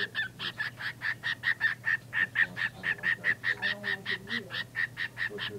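Pet bird calling in a fast, even run of short, honking squawks, about five a second, with a brief pause near the end.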